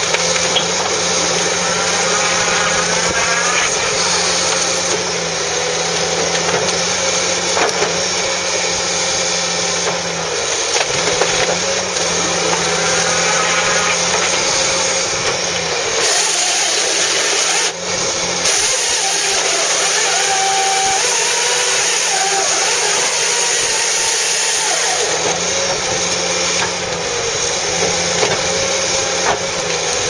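Fiberpac 370B brash baler at work: the carrying forestry machine's diesel engine and hydraulics running steadily under load while the baler compresses brash into a bundle. Short knocks and squeals of wood and machinery come through the running noise, with a brief drop in level about two-thirds of the way through.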